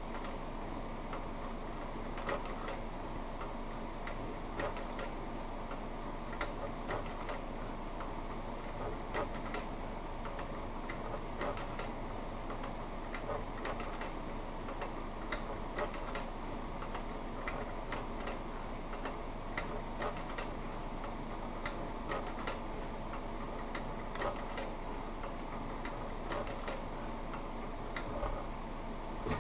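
Industrial sewing machine stitching slowly through thick leather, a click at each stitch, roughly one a second and unevenly spaced, over a steady hum.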